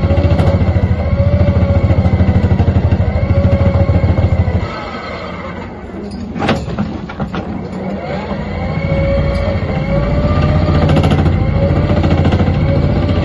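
Xcentric Ripper XR42 vibrating ripper on a Hyundai 330 excavator hammering into dolomite and limestone, a fast, even pounding over the excavator's engine. The pounding drops away about four and a half seconds in, with a sharp knock about six and a half seconds in, and starts again about nine seconds in.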